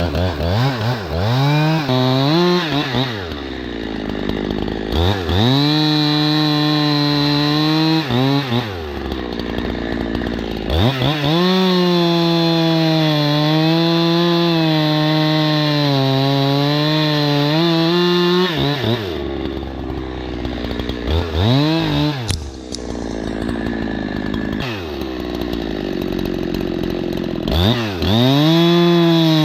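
Two-stroke chainsaw revved up and down repeatedly, held at full throttle for about seven seconds in the middle of a cut, then dropping back to a lower idle between bursts while cutting up the diseased ash tree.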